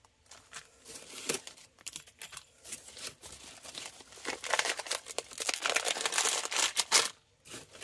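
Clear cellophane and plastic packaging crinkling and rustling in irregular bursts as wrapped items are handled and taken out of a bag, busiest and loudest a little past halfway.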